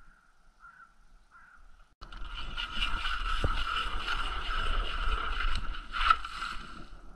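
Hand ice auger drilling into ice, its blades grinding and scraping through it from about two seconds in. There is a sharp knock about six seconds in.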